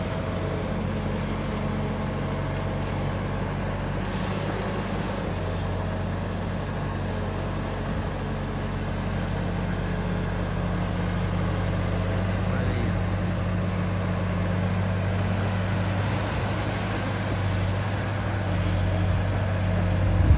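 Sumitomo S265 long-reach excavator's diesel engine running steadily while its hydraulics work the 17-metre boom and bucket digging underwater, with a couple of louder knocks at the very end.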